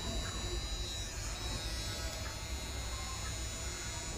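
Small motor of a handheld rechargeable milk frother running steadily with a buzzing hum.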